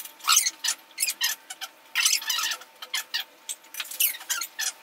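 Quick, high-pitched chattering voices in short bursts with gliding pitch, like conversation sped up, as people talk at a dinner table.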